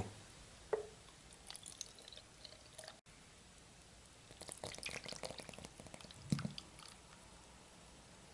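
Faint liquid sounds from a small plastic glue bottle: water poured into it, then glue thinned with water squeezed out into a bowl in small splashy drips and squirts, with light plastic clicks. The drips thicken in the second half, with one louder squirt near the end.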